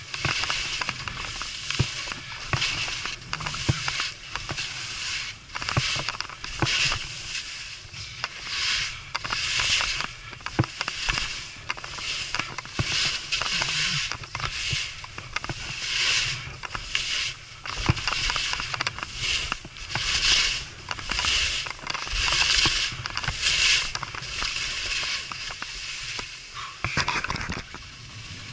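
Skis swishing and scraping across firm snow in linked turns, a hiss with each turn about once a second, over a low rumble of wind on the microphone.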